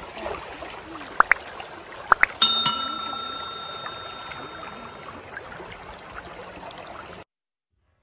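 Shallow river water running over sand and stones, with a few quick clicks and then a bright bell ding about two and a half seconds in, the chime of a subscribe-button sound effect, ringing out over a couple of seconds. The sound cuts off abruptly near the end.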